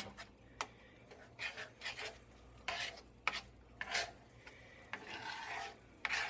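A utensil stirring and scraping in a cooking pan: a series of short, irregular scraping strokes.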